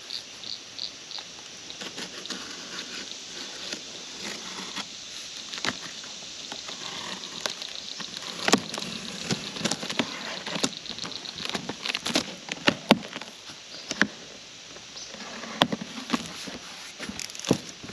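A knife slitting packing tape on a cardboard box and the flaps being pulled open: scraping, tape tearing and cardboard crackling, with sharp snaps scattered through. Crickets chirp in the background at first.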